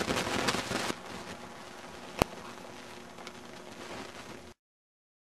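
Crackling, rustling noise on an outdoor camcorder microphone. About a second in it drops to a quieter steady hiss, with one sharp click a little after that. It cuts off abruptly to silence near the end.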